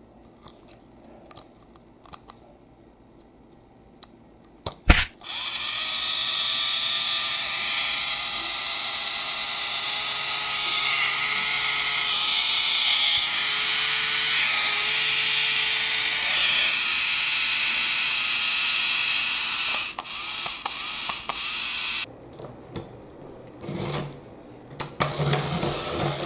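Battery-powered toy train motor unit, a yellow plastic 'Power Train' motor car, starting with a click about five seconds in and then running with a steady high whir for about sixteen seconds while held in the hand off the track. Small handling clicks come before and after it.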